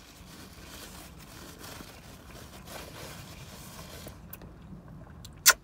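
Close-up chewing and mouth noises from a mouthful of toasted meatball sub, with one sharp, loud click near the end.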